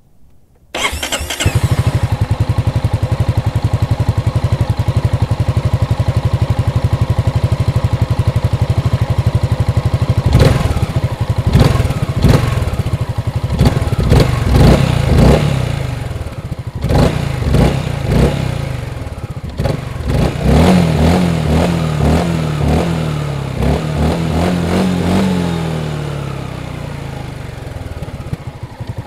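Honda SH350i scooter's single-cylinder four-stroke engine starting about a second in and idling steadily, then revved in a series of throttle blips, rising and falling, before settling back to idle near the end.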